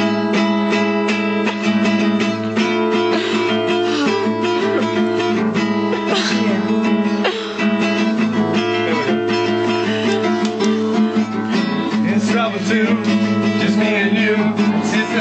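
Acoustic guitar strummed steadily, playing an instrumental passage with no singing.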